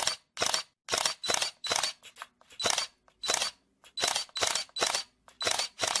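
Camera shutter clicks: about a dozen sharp clicks in a quick, uneven series, some in close pairs.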